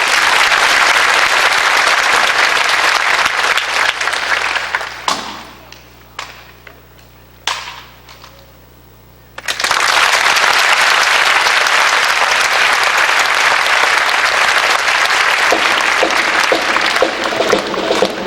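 Audience applauding in a large hall. The applause dies away about five seconds in, leaving a lull of a few seconds with a handful of sharp clicks, then a fresh round of applause breaks out and carries on.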